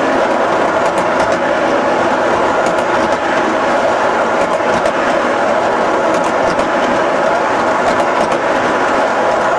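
O-gauge model train of MTH autorack cars rolling past close by on its track: a steady rumble of wheels on rail, with scattered sharp clicks as the wheels cross track joints.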